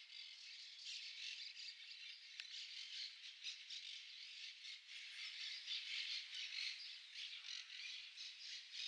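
A dense chorus of many birds chirping and calling at once: a constant overlapping chatter of short high calls, faint, with no low sound under it.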